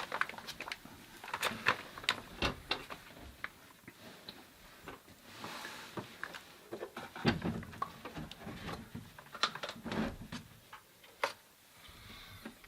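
Irregular clicks, clinks and knocks of small metal plumbing fittings and hand tools being handled and set down, with a brief scrape about halfway through.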